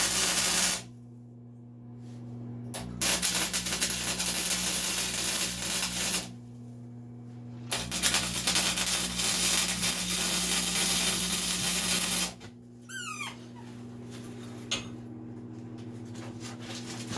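MIG welder arc crackling on heavy steel plate in three runs: one ending about a second in, then about three seconds and about four seconds long, with a steady hum in the gaps. Heat and wire feed have just been turned up and the arc is sounding better.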